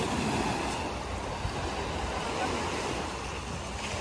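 Small sea waves breaking and washing up a sandy beach at the water's edge, a steady rush of surf, with wind buffeting the microphone.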